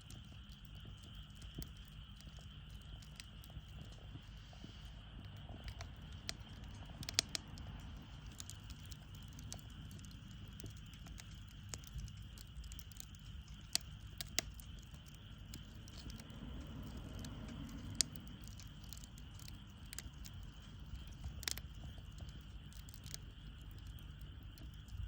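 Wood fire burning in a Solo Stove Campfire fire pit: irregular crackling with scattered sharp pops, a few of them much louder, over a steady low rumble. A steady high chirring, like insects, runs under it.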